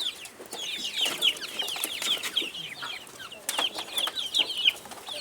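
A flock of young chicks peeping continuously, many short, high, falling chirps overlapping one another.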